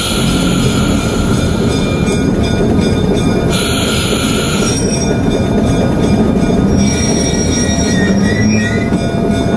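An ALCO RSD-1 diesel locomotive heard from inside the cab, rolling slowly with a steady engine rumble. There is a short burst of hiss at the start and another about four seconds in. Faint wheel squeal comes in near the end.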